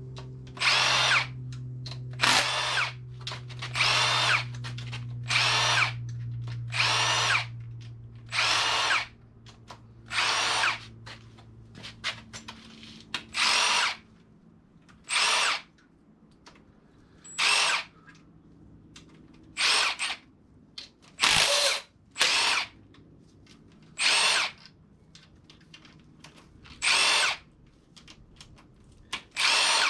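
Milwaukee cordless power tool spinning out the loosened rocker arm bolts on an LQ4 V8's cylinder heads: about sixteen short runs, one every second or two, each winding up and back down as a bolt comes free.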